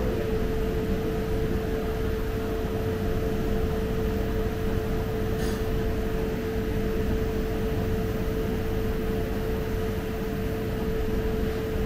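Steady machine hum holding one constant mid-pitched tone over a low rumble, with a single faint tick about five and a half seconds in.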